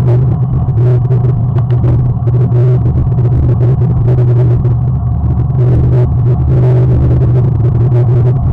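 A loud, steady low rumble with no breaks.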